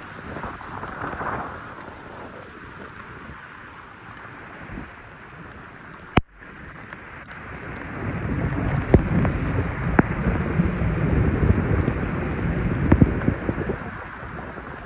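Scooter tyres ploughing through floodwater: a steady wash of splashing and spray, with wind buffeting the microphone, getting louder and rougher from about eight seconds in. A single sharp click about six seconds in.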